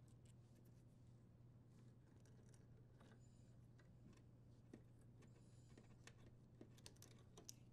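Near silence: faint small clicks and rustles of plastic wire nuts being untwisted and wires pulled apart, over a low steady hum.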